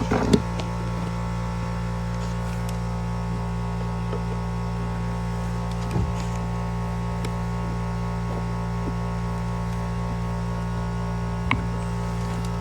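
Air compressor running steadily with an even, low hum, pumping air into the PEX lines for a pressure test. There are a couple of faint knocks partway through.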